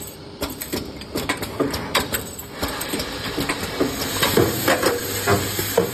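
Automatic handle clip welding machine running, with irregular sharp metallic clanks and clicks, two or three a second, as tinplate drum lids are handled and loaded under the welding head, over a steady machine noise.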